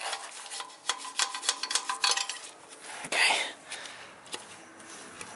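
Light metal-on-metal clinks and taps as steel tappets are handled and worked in the lifter bores of a 6.7 Cummins engine block, a quick run of sharp clinks followed by a louder scrape about three seconds in.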